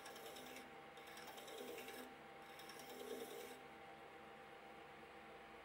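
Hand file rasping against brass bar stock spinning in a lathe chuck, chamfering its sharp edge: three faint strokes, ending about three and a half seconds in, over the steady hum of the running lathe spindle.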